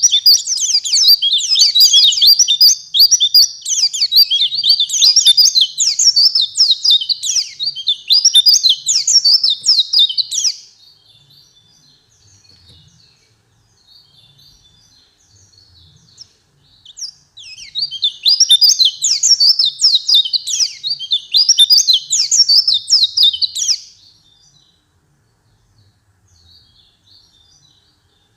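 White-eye (pleci) song: fast runs of high, thin chirps and trills in two long loud bursts, the first lasting about ten seconds and the second starting about 18 seconds in, with faint scattered chirps between and after.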